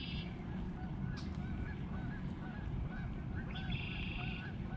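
Marsh birds calling: a string of short repeated calls, with a buzzy trill at the start and another about three and a half seconds in, over steady low background noise.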